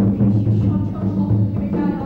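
Music with a low, pulsing drum beat repeating steadily.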